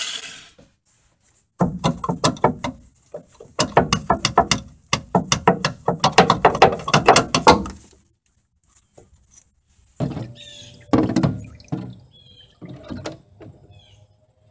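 Rapid scraping strokes of hand work on the freshly welded steel of a truck's frame-mounted cab mount, in two spells. A few scattered knocks follow, and a bird chirps a few times near the end.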